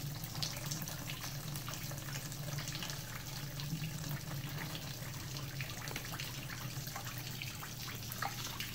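Diesel running through the fuel tank being flushed out, streaming and spattering as it drains out the bottom, with a steady low hum underneath.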